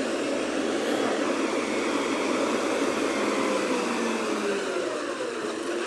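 Garbage truck's diesel engine running steadily behind the gate, a constant rushing hum, with a faint tone sliding slowly down in pitch through the middle.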